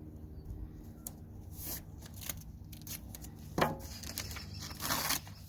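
Tape being pulled off the roll and torn to mask off a headlight, in a few short rasping bursts, the sharpest about halfway through and a longer one near the end, over a steady low hum.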